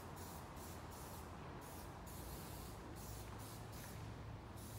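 Quiet room tone: a low steady hum with a faint hiss.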